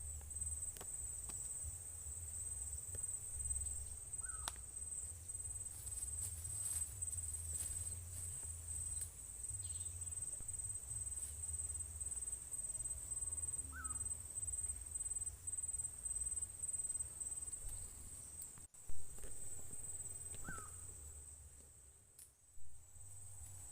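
Crickets trilling in one steady high-pitched note, with a short call three times, about eight seconds apart. There are scattered light clicks, and a single sharp thump about nineteen seconds in.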